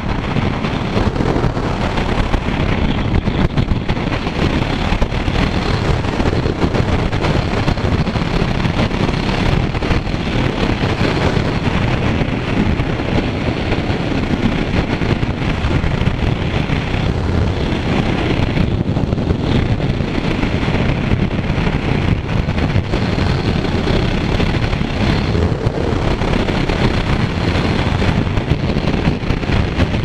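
Steady wind rushing over the microphone of a rider on a Kawasaki Z900 motorcycle at speed, with the bike's running noise underneath.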